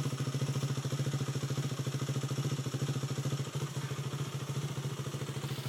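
Dirt bike engine running at steady low revs with an even, rapid chug, not revving up.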